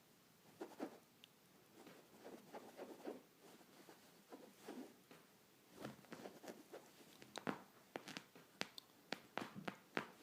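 Faint, irregular scratching and light tapping as fingers scratch a surface and a kitten's paws and claws pounce at them, with sharper clicks coming more often in the second half.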